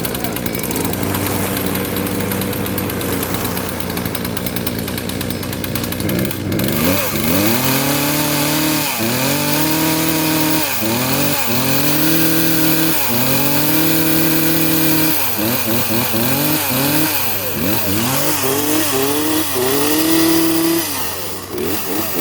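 Chainsaw engine idling, then from about six seconds in revved up and let back down over and over in quick throttle blips, settling back to idle near the end.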